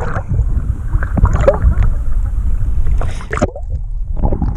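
Sea water sloshing and splashing against an action camera held at the surface, with gurgling and a low, irregular rumble as it dips in and out of the water.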